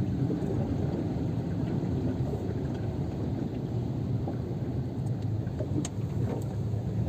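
Steady low rumble of a car moving slowly through a flooded street, heard inside the cabin: engine and water noise under the car, with a few light ticks about five to six seconds in.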